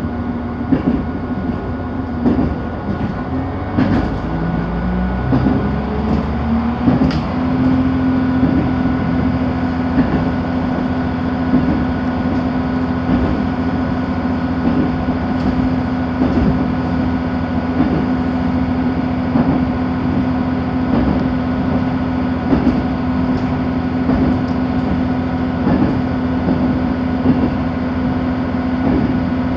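RA3 diesel railbus running, heard from inside the car: steady rolling noise with wheels clicking over rail joints, and a drive hum that rises in pitch over the first seven seconds or so as the railbus speeds up, then holds steady.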